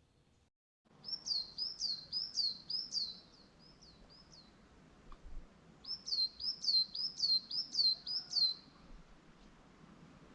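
A bird singing two phrases of repeated high, down-slurred notes, about three notes a second: the first phrase begins about a second in and fades out, and the second begins about six seconds in.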